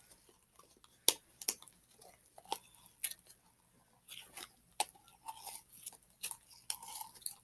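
Scattered sharp clicks and soft crackles from a plastic slime container being opened and the glitter slime inside being handled. The loudest click comes about a second in.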